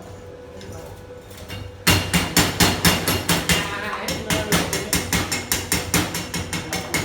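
A hammer striking metal in quick, even blows, about five a second, starting about two seconds in.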